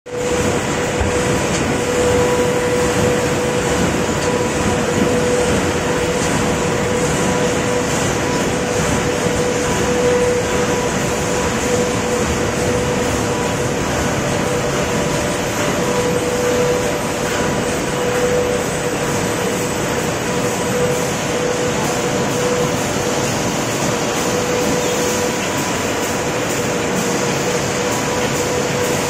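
Corrugated box turn conveyor and prefeeder machinery running: a steady mechanical rumble under a constant hum.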